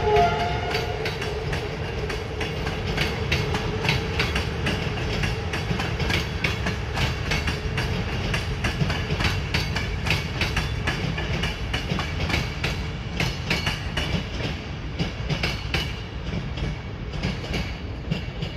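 A train rolling past, its wheels clattering over the rail joints in a quick run of clicks over a steady rumble, fading away near the end.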